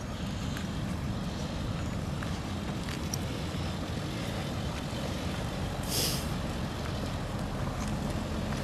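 A slow-moving truck's engine and street traffic give a steady low rumble, with a short hiss about six seconds in.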